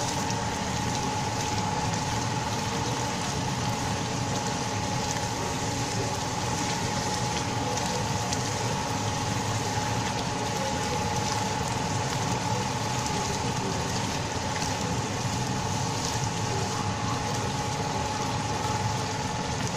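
Thick Schezwan chilli sauce simmering and sizzling in a nonstick frying pan over a lit gas burner, a steady even hiss, with a steady tone running under it.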